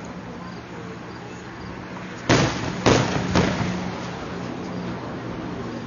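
Three aerial fireworks shells bursting in quick succession about two seconds in, each a sharp bang with a rumbling echo that dies away, over a steady low hum.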